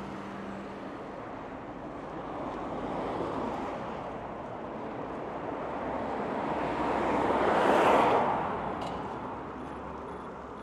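City road traffic: car tyres and engines passing on a wide street, with one vehicle passing close and loudest about eight seconds in before fading away.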